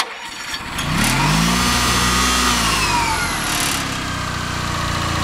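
Honda ES6500 generator's engine electric-started: a click at the start switch, then it catches about a second in, revs up and settles back into a steady run.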